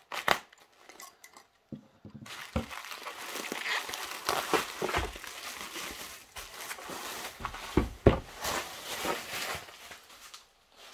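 Plastic bubble wrap crinkling and rustling as it is pulled off a cardboard box, full of small crackles. A couple of dull thumps come about eight seconds in.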